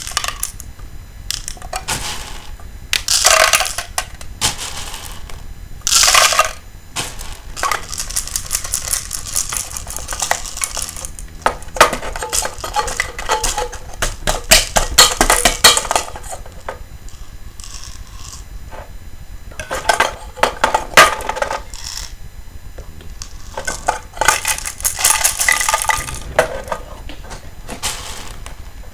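Plastic airsoft BBs dropping into an aluminium soda can, clicking and rattling against the metal in repeated bursts, some of them long runs of rapid ticks.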